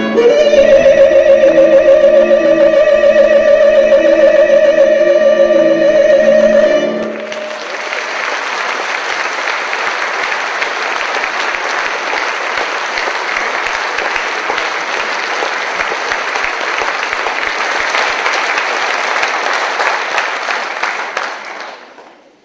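A woman's voice holds a final sung note with vibrato over piano, cello and brass, and the music ends about seven seconds in. Then the audience applauds steadily, dying away just before the end.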